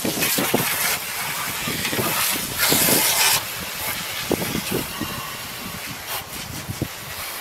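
Garden hose spraying water onto a window air conditioner's coils and housing to rinse off the cleaner: a steady hiss that surges louder at the start and again about three seconds in.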